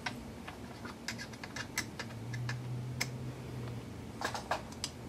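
Irregular small clicks and taps of hardware and a tool being handled while an M3 nut is fitted onto a screw on an RC truck chassis. A faint low hum runs for about a second and a half in the middle.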